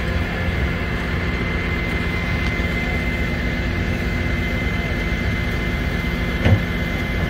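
Flatbed tow truck's engine running steadily, with a steady high whine over the low rumble. A single short knock comes about six and a half seconds in.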